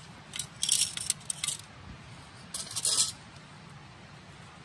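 Glowing wood embers crackling and ticking, with two short spells of sharp, high crackles about one second and three seconds in over a low steady hum.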